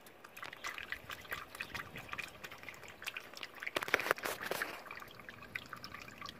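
Waterless engine coolant pouring from a plastic jug into a funnel in a radiator filler neck, a quiet run of irregular gurgles and splashes that gets louder around four seconds in. The cooling system is being filled with waterless coolant.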